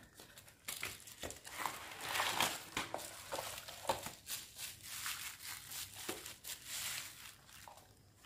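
Plastic bubble wrap crinkling and rustling as a calculator is pulled out of its box and unwrapped, with many small clicks and crackles. The crinkling starts about a second in and dies down near the end.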